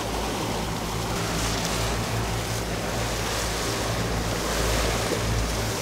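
Water rushing and churning in the wake of a small fishing boat moving at trolling speed, over the steady low hum of its motor.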